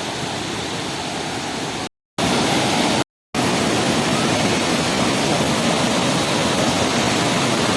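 Waterfall: a steady rush of falling water. It cuts out twice, briefly, about two and three seconds in, and is a little louder afterwards.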